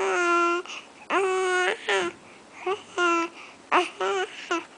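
Young baby cooing and babbling: a string of drawn-out vocal sounds, each held at a steady pitch for about half a second, with shorter ones in between and brief pauses.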